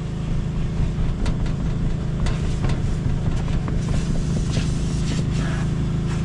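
A machine running steadily with a low hum, with scattered clicks and a few short hissing bursts on top.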